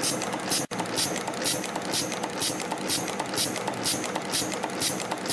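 YHM FB-210 CNC wire/strip forming machine running through its forming cycle on flat rings, a steady mechanical running noise with a hissing, clicking pulse about twice a second. The sound drops out for an instant under a second in.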